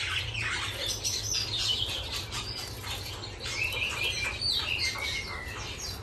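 Several caged songbirds chirping and calling over one another, short rapid notes and brief gliding whistles, with a steady low hum underneath.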